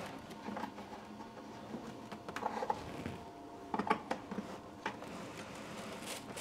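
Light knocks and scrapes from the heat recovery ventilator's heat exchanger core being tugged loose and slid out along its rails, over a faint steady hum.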